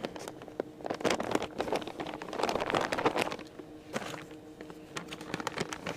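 Gloves being pulled onto the hands: a run of rustling and small snaps and clicks, busiest in the middle, over a faint steady hum.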